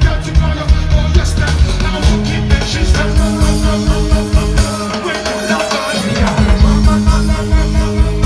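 Live reggae band music with a heavy bass line and a steady beat; the bass drops back briefly about five seconds in.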